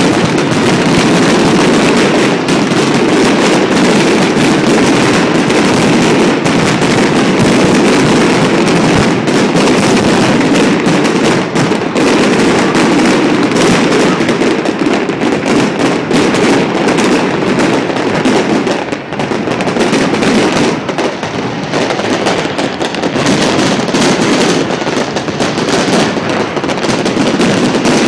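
Fireworks display: a dense, unbroken barrage of bangs and crackling, easing briefly about two-thirds of the way through before building again.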